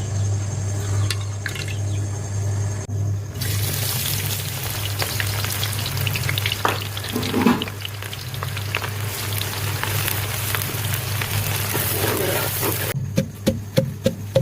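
Food frying in hot oil in a pan, a dense crackling sizzle that starts about three seconds in and stops shortly before the end, over a steady low hum.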